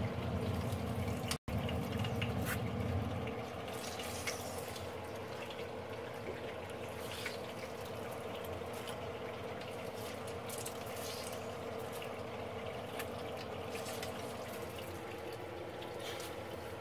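Fresh lemon juice dripping into an empty nonstick frying pan as lemon halves are squeezed by hand: faint scattered drips over a steady low hum.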